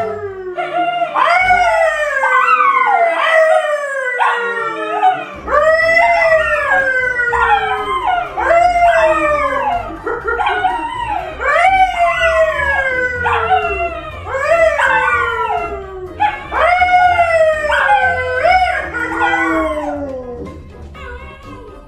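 A man and two dogs, a brown poodle and a yellow Labrador retriever, howling together: a long run of falling howls, one after another, that fades out near the end.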